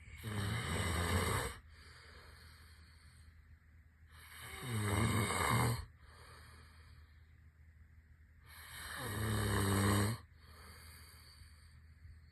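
Snoring: three snores about four seconds apart, each about a second and a half long and low-pitched, the second and third swelling up and then cutting off sharply, with quieter breathing between.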